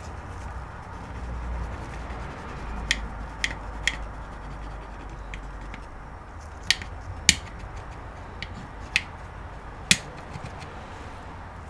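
Sharp clicks and light taps of gloved fingers handling and pressing on the plastic casing of a cable modem. There are about eight separate clicks, spread through, over a low steady rumble.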